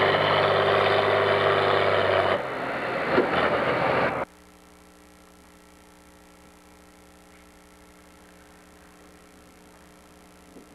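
International Harvester 966 pulling tractor's diesel engine running hard at the end of a pull, then throttling back about two and a half seconds in. The sound cuts off suddenly a little past four seconds, leaving only a faint steady hum.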